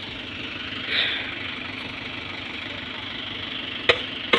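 Farm tractor engine idling steadily, swelling briefly about a second in, with two sharp knocks near the end.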